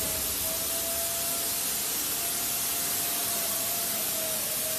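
Hydraulic freight elevator running as its car travels in the shaft: a steady, even hiss with a faint steady whine in it.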